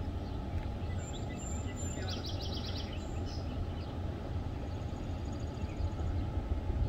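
Birds chirping over a steady low outdoor rumble, with a quick run of about six chirps about two seconds in. The rumble swells slightly near the end.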